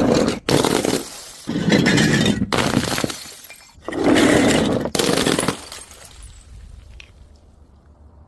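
Glass breaking and crunching in a run of about five loud crashes, each starting and stopping abruptly. The last one trails off to quiet for the final couple of seconds.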